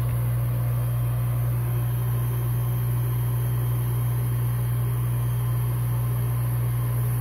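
Small radial compressor (regenerative side-channel blower) running steadily, a constant low hum with a light airy hiss over it.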